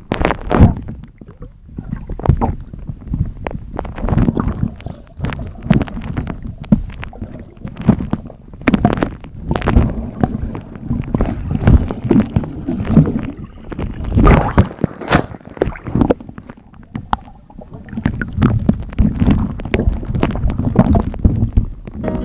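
Muffled water churning and gurgling around a camera held underwater, with irregular thumps and surges from the water moving against it.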